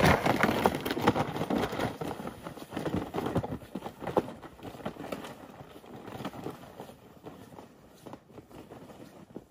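Footsteps crunching on a thin layer of snow, with a loaded sled scraping along behind. The sounds are loudest at first and fade steadily as the walker moves away.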